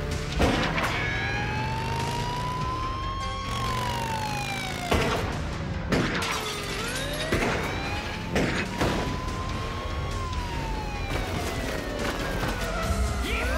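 A police siren wails slowly up and down while a revolver fires six sharp shots: one about half a second in, the rest spread through the middle. A car engine runs underneath.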